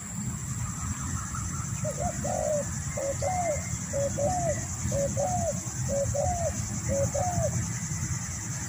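Spotted dove cooing: six phrases about a second apart, each a short note followed by a longer rising-and-falling coo.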